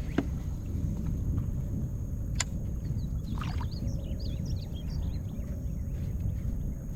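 A steady low rumble throughout, with small birds chirping a quick run of rising and falling notes about three seconds in. Two sharp clicks, one near the start and one about two seconds in.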